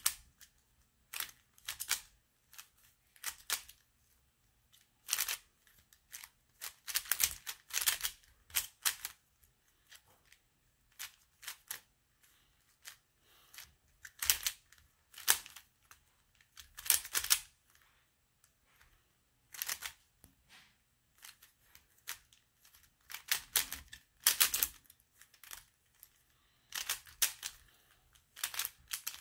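3x3 Rubik's cube being turned by hand, its plastic layers clicking and clacking in quick bursts of turns with short pauses between.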